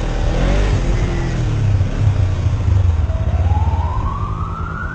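Vehicle engine running under way with a low, steady drone. A siren wail climbs in pitch from about three seconds in.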